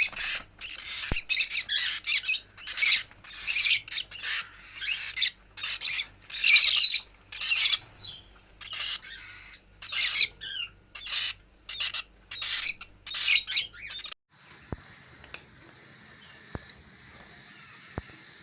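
Caged aviary birds calling in loud, harsh squawks, about one or two a second. About fourteen seconds in the squawks stop abruptly, leaving a quieter, steady background of chirping.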